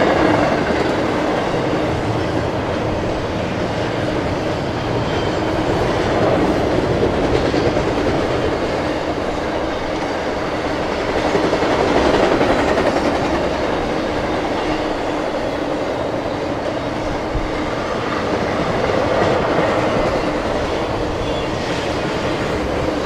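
BNSF intermodal freight train's cars, double-stack container cars and trailer-carrying flatcars, rolling past on the rails: a steady noise of wheels running on track.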